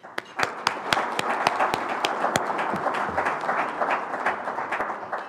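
Audience applauding: many people clapping at once, fading out near the end.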